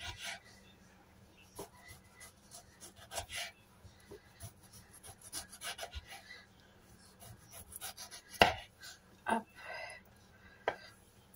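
Knife thinly slicing a tomato on a wooden chopping board: scattered soft taps and scrapes of the blade reaching the board, with a louder knock about eight and a half seconds in and another a second later.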